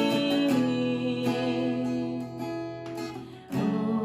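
Acoustic guitar strumming sustained chords in a slow worship song, the chord changing about half a second in and again near the end.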